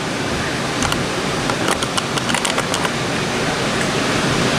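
Model train running along the layout's track, a steady rushing noise with a cluster of light clicks about one to three seconds in.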